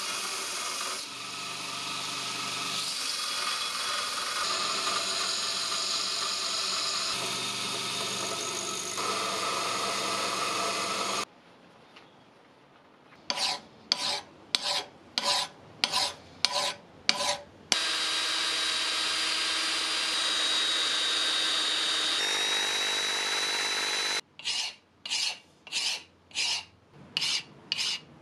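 Bench belt grinder running, with the steel wrench pressed against the sanding belt, for about the first eleven seconds. After a short pause, a hand file rasps on the steel in steady back-and-forth strokes, about two a second. There is a second stretch of steady machine noise, then a second bout of filing near the end.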